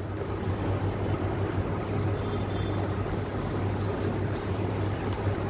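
Steady background hiss with a low hum, and a short run of light, quick scratching ticks from a stylus writing on a tablet screen about two seconds in.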